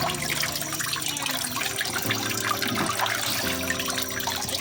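Running water, a steady rushing hiss, under background music whose held chords change twice.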